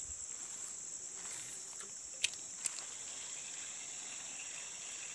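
Steady high-pitched drone of insects, with two sharp clicks close together a little over two seconds in.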